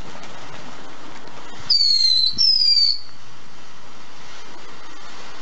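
Ground firework fountain spraying sparks with a steady hiss; a little under two seconds in it gives two high whistles, one after the other, each falling slightly in pitch over about half a second and louder than the hiss.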